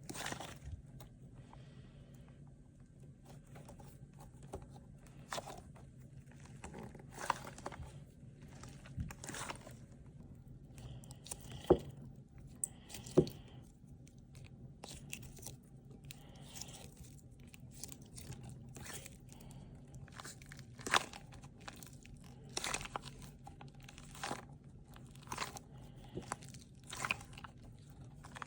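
Squishy toys and their packaging being handled: irregular crinkling, crunching and rustling, with two sharper clicks around the middle, over a low steady hum.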